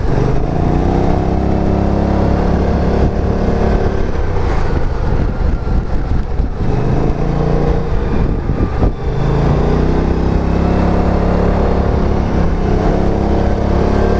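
BMW C650 GT maxi-scooter's parallel-twin engine under way on a winding road, with wind noise. Its pitch rises about half a second in and then holds, falls away between about six and nine seconds as the throttle eases, then climbs again near ten seconds and holds steady.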